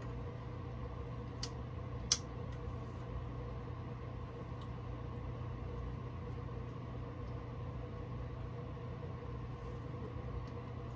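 Steady background hum of an unseen running machine, with two small metallic clicks about one and a half and two seconds in, the second sharper, as a fitting on a diesel engine block is worked by hand with a hex key.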